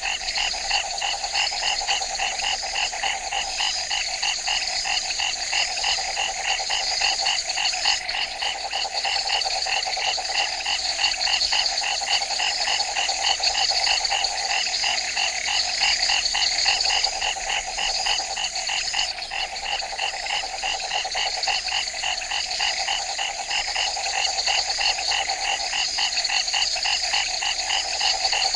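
Dense night chorus of frogs calling in rapid, overlapping repeating pulses, over a steady high-pitched buzz.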